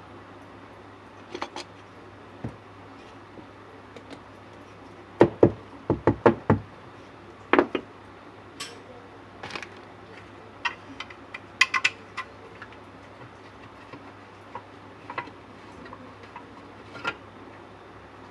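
Irregular knocks and taps of hard objects being handled during installation work. The loudest is a quick run of about six knocks between five and six and a half seconds in, and there are a few sharper clicks around twelve seconds, over a steady low hum.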